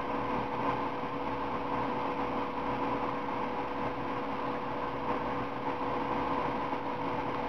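Steady background hum and hiss with a constant low tone, with no distinct events.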